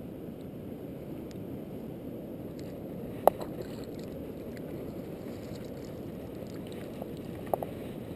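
Shallow estuary water sloshing steadily around a landing net as it is worked through the water to land a hooked bream. One short, sharp sound comes about three seconds in, and two smaller ones come near the end.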